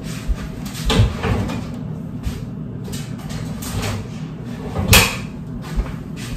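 Several separate knocks and clacks of household objects being handled and set down, the loudest about five seconds in, over a steady low hum.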